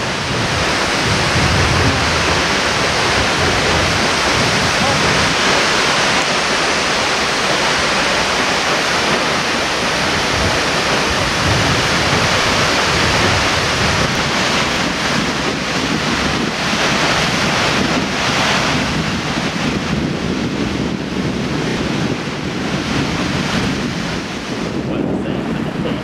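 Tall waterfall, about 60 m, plunging onto its pool: a loud, steady rush of falling water, with wind buffeting the microphone. It eases slightly near the end.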